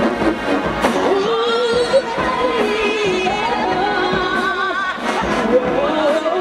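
Marching band brass playing a melody with a wide, wavering vibrato, over drum hits; the tune climbs in steps partway through.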